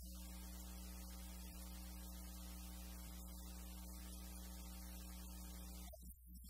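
Steady electrical mains hum with hiss, several even tones stacked together, cutting off abruptly near the end.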